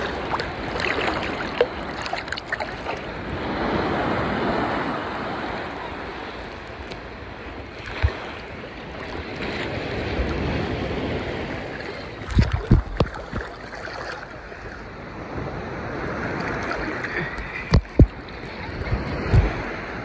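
Ocean surf washing and rushing, rising and falling in swells a few seconds apart. Several brief low thumps hit the microphone, in a cluster past the middle and again near the end.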